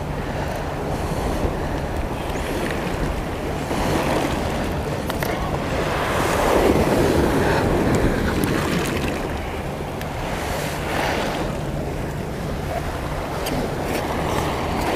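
Sea waves surging and washing against shore rocks in repeated swells, loudest about halfway through, with wind buffeting the microphone.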